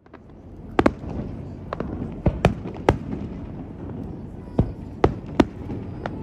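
Fireworks display: aerial shells bursting in sharp bangs, about ten in six seconds, some in quick pairs, over a steady low background noise.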